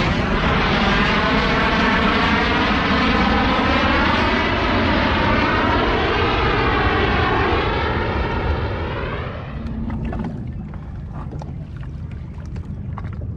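Fighter jet flying low overhead: loud jet noise with a swirling, wavering whoosh that sweeps in pitch as it passes, dying away about nine seconds in. After that, light slaps of water against the jet ski's hull.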